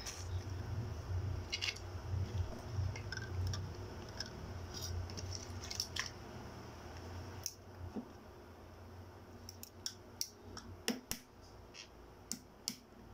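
Balut (boiled duck egg) shell being cracked and peeled by hand: scattered sharp clicks and crackles of shell, coming more often in the last few seconds, over a low rumble in the first half.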